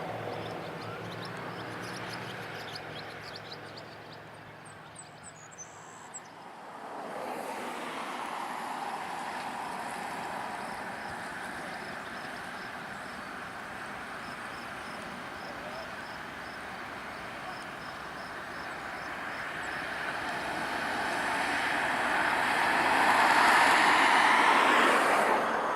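Norfolk Southern diesel freight train: a low steady engine hum for the first six seconds, then the train's running noise building louder and louder as it comes on, loudest just before the end.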